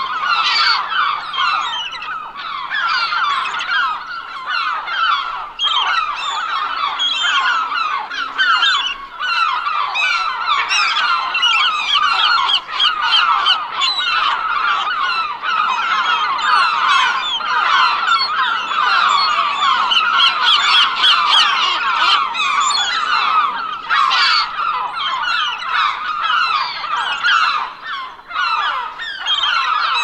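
Flock of seagulls calling, many overlapping cries at once, without a break.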